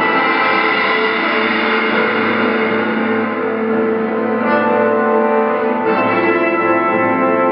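Instrumental background music of sustained, organ-like chords that change twice in the second half.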